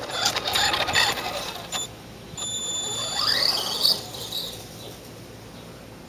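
Electric motor and gears of a Tamiya TLT-1 Rockbuster radio-controlled monster truck whining under throttle in two bursts, the pitch rising in the second, then fading as the truck drives away.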